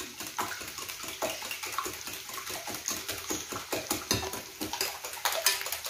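Eggs beaten by hand in a glass bowl: quick, steady clicking of the metal utensil against the glass, over the sizzle of potatoes frying in a pan.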